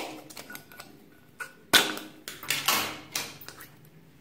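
Small plastic slime tub's lid being twisted and pried off: a run of clicks and sharp plastic cracks, the loudest about two seconds in, then crackling as the lid comes free.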